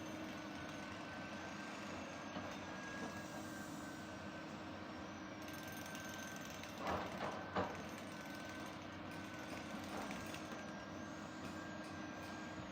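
Excavator engine running steadily with a constant high whine while digging a foundation trench, with a quick cluster of knocks about seven seconds in.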